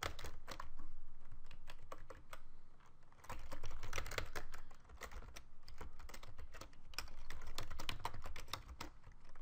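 Typing on a computer keyboard: quick runs of key clicks, with a short pause about three seconds in.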